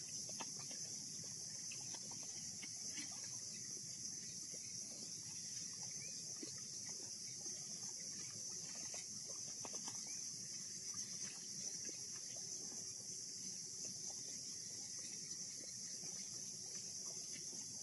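Steady, high-pitched chorus of insects: one continuous shrill drone, with faint scattered clicks beneath it.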